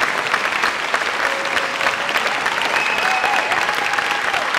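Audience applauding: many hands clapping in a steady dense patter.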